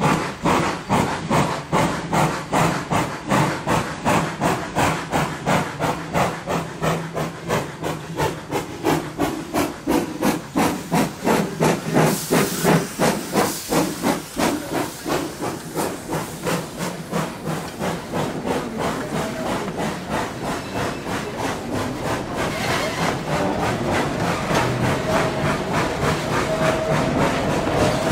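Rio Grande Southern No. 20, a narrow-gauge 4-6-0 steam locomotive, working a train: a regular beat of exhaust chuffs with hissing steam, the beat quickening until it blurs into a continuous rush as the engine gathers speed. There is a brief louder burst of steam hiss about twelve seconds in, and a steady high tone joins near the end.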